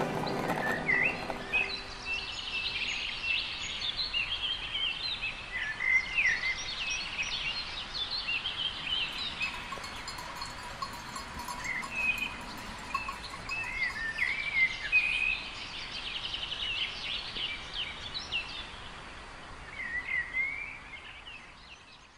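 Small songbirds chirping and singing, short quick phrases overlapping one another, fading out near the end.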